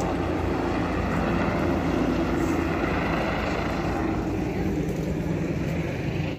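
Steady mechanical drone like a running engine, an even rushing noise with a low hum under it, cutting off suddenly at the end.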